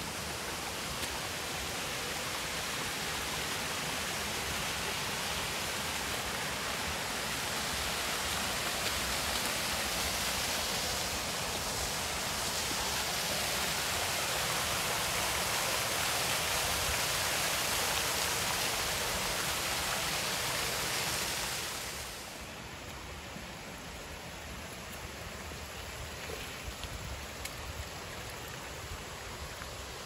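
Steady rush of a mountain stream flowing over rocks. It grows slightly louder towards the middle, then drops noticeably about three quarters of the way through.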